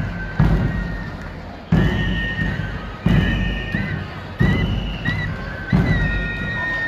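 Traditional Andean procession music. A large drum strikes a slow, even beat, five strikes, each dying away, under a high pito flute melody with short trills.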